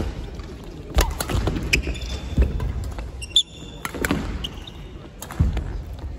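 Badminton rally on a wooden court: several sharp racket strikes on the shuttlecock, with footfalls thudding on the sprung floor and a brief shoe squeak a little past the middle.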